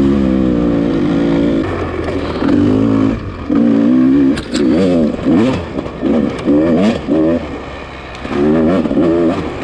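Dirt bike engine revving up and down as the throttle is opened and closed over and over on rough trail, its pitch swooping and dropping every second or so. There are a couple of sharp clicks about four and a half seconds in.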